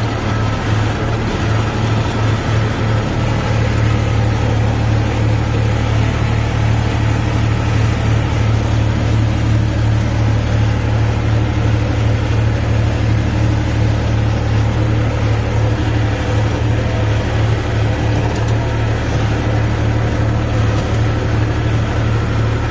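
Tractor engine running steadily at a constant speed, with a strong low engine note that does not change.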